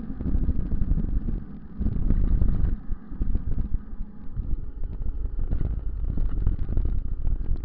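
Wind buffeting an action camera's microphone on a mountain bike riding a dirt road, a heavy low rumble with many small rattles and knocks from the bumpy ride. It eases briefly about one and a half and three seconds in.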